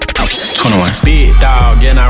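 Hip hop beat starting up: a crash-like noise at the start, then gliding pitched sounds, and a heavy deep bass comes in about a second in.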